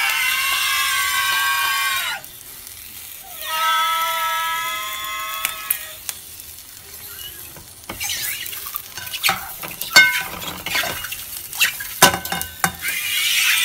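Food frying in a pan, giving off long, high-pitched squeals like screams. Two long squeals come first, then crackling sizzle with short squeaks, and another squeal starts near the end.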